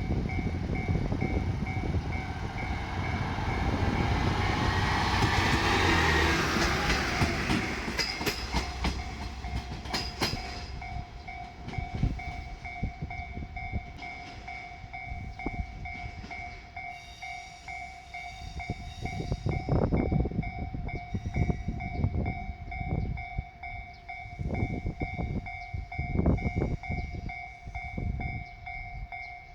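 Level crossing warning bell ringing in a rapid repeating pattern throughout, while a JR Shikoku Series 1500 diesel railcar runs over the crossing. The railcar's engine and wheel noise swells to its loudest about six seconds in, then comes a quick run of sharp clicks, and it dies down to scattered low knocks as the bell keeps ringing.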